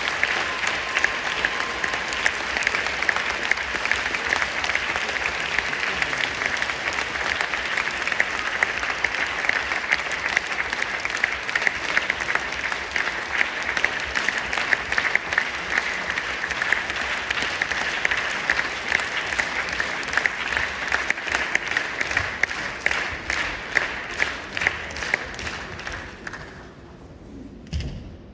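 Audience applauding steadily, a dense patter of many hands clapping, which dies away about two seconds before the end.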